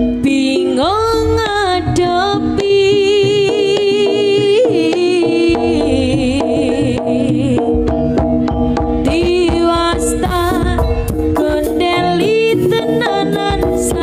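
Live Javanese jaranan music: kendang drum strokes under a high melody of long, wavering held notes, with a heavier low beat coming in about halfway through.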